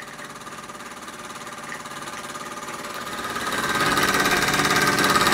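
Bowman E158 model steam engine running steadily in steam, a fast, even mechanical beat that grows clearly louder about three seconds in.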